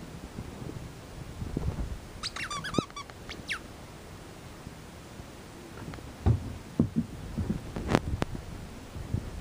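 Squeaking and thumps from an Australian shepherd puppy playing ball on carpet: a high, wavering squeak lasting under a second, a shorter squeak just after, then, a few seconds later, a run of knocks and thumps as the puppy lunges about.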